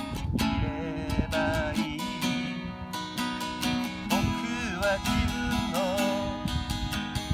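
Acoustic guitar being strummed in a steady rhythm of chords.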